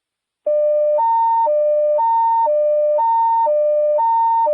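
Radio dispatch evacuation alert tone over a fire scanner channel: a hi-lo warble that alternates between two pitches about every half second, starting about half a second in. It signals an emergency evacuation order for all units at the fire.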